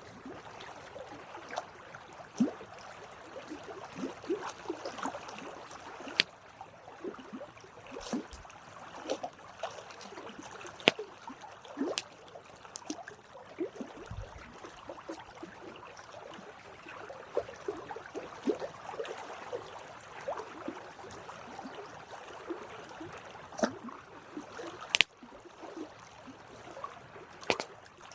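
Wood campfire crackling, with irregular sharp pops and snaps over a soft steady hiss.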